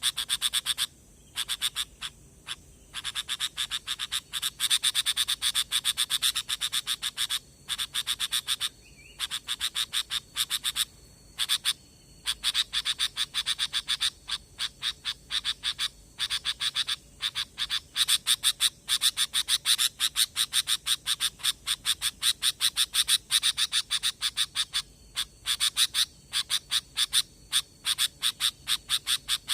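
Bird-trapping lure recording of sooty-headed bulbuls (kutilang) chattering: long runs of very fast clicking notes, broken by brief pauses.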